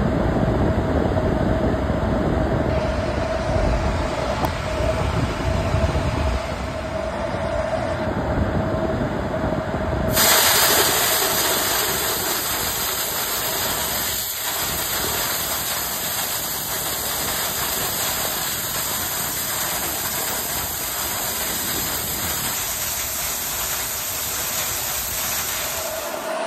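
Steady rushing air and machine noise, typical of air-duct cleaning equipment running, with a steady hum. About ten seconds in, a louder high hiss starts suddenly and carries on while the hum drops out.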